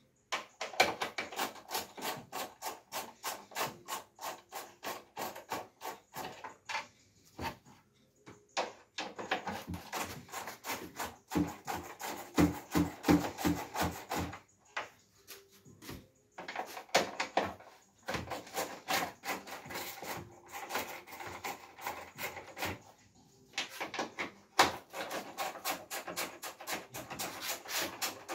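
Rapid clicking and scraping of hand tools working the fasteners on the plastic third brake light housing of a Cadillac Escalade, in runs of several seconds with short pauses.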